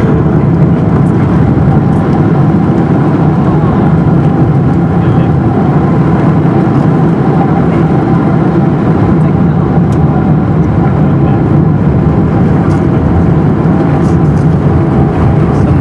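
Loud, steady cabin roar of a Boeing 777-300ER rolling out on the runway after touchdown, with its spoilers raised. Its GE90-115B engines, the air rushing over the wing and the wheels on the runway blend into one rumble, with a faint steady hum through it.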